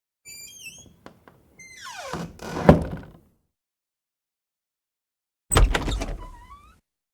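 Door hinges squeak and click as a door is moved, then a long falling creak ends in a loud thud as it shuts. After a silence a second sharp clunk comes, followed by a few short squeaks.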